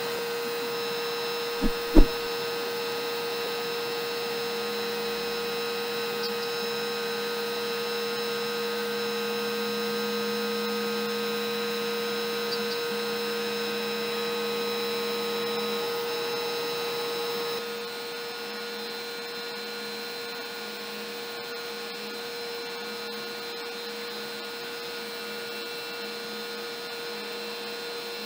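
Router on a LowRider CNC v3 spinning a single-flute upcut bit while it cuts MDF: a steady motor whine and hum. Two sharp clicks about two seconds in, and the sound drops a little in level about two-thirds of the way through.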